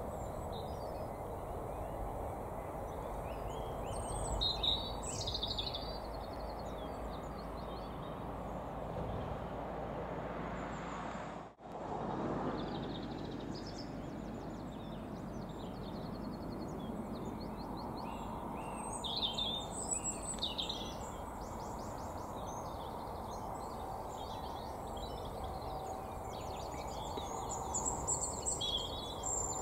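Small birds singing and chirping in short spells of quick trills over a steady low outdoor background noise, the birdsong strongest about four seconds in, around twenty seconds in and near the end. The sound cuts out for a moment a little before halfway.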